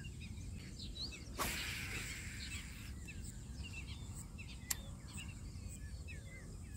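Small birds chirping and twittering over a steady low rumble of wind. About a second and a half in comes a short rush of noise that fades over about a second, and near five seconds a single sharp click.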